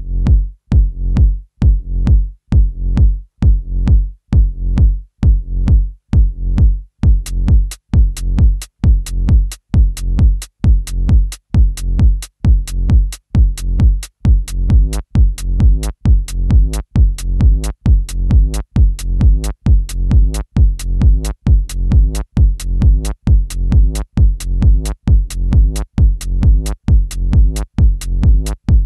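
Electronic techno track opening on a bare drum-machine kick drum in a steady four-on-the-floor pulse, just under two beats a second. About seven seconds in, a sharp high click is added on every beat.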